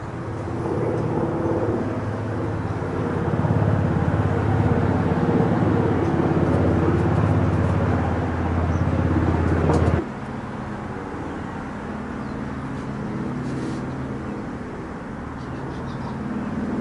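Piston engine of a vintage single-engine propeller warbird flying overhead: a steady, droning hum that grows louder over the first several seconds. It drops suddenly about ten seconds in, then continues as a quieter, steady drone.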